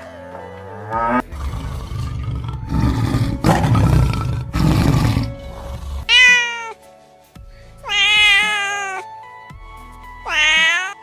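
Animal calls over background music: rough, noisy calls in the first half, then three pitched, wavering calls in the second half.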